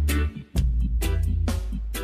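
Recorded reggae music with a deep, heavy bass line and sharp percussive hits.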